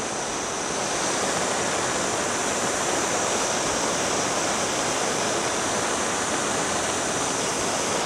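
Handheld gas torch burning with a steady hiss as its flame heats the blades of pruning shears to disinfect them, then shut off sharply near the end.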